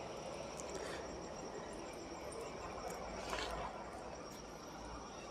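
Night insects chirping steadily in the background, a faint continuous high-pitched trill.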